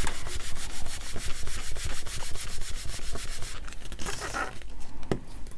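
A hand rubbing quickly back and forth over paper, pressing a freshly glued piece flat onto a journal page, at about five strokes a second; the rubbing stops about three and a half seconds in.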